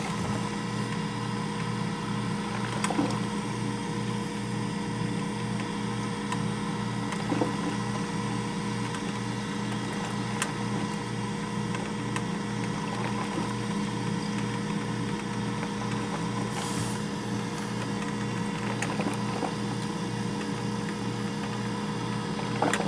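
Black & Decker drip coffee maker running, a steady electrical hum with a low throb that pulses evenly about twice a second, and a few faint ticks.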